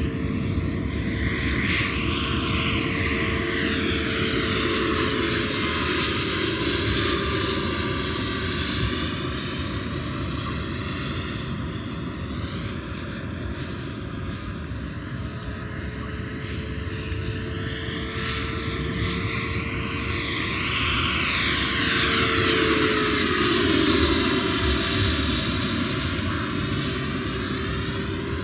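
Freewing Avanti RC jet's 80 mm 11-blade WeMoTec electric ducted fan whining steadily in flight. The whine swells and fades as the model circles, dipping slightly in pitch as it goes by twice, and is loudest a little past two-thirds of the way through.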